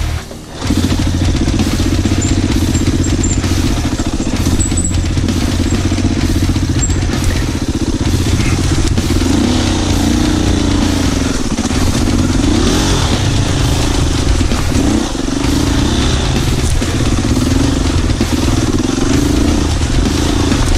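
Enduro motorcycle engine running while the bike is ridden, steady at first, then its revs rising and falling repeatedly from about halfway through.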